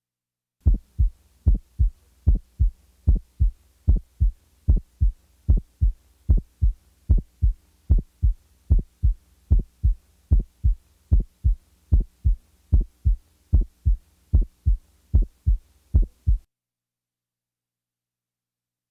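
Heart sounds heard through a stethoscope: a steady, regular run of low thuds with a widely split first heart sound, so the first sound comes as two close beats before the second sound. The beating stops about three-quarters of the way through, followed by silence.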